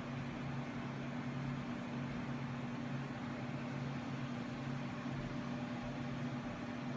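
Steady low mechanical hum with an even hiss behind it.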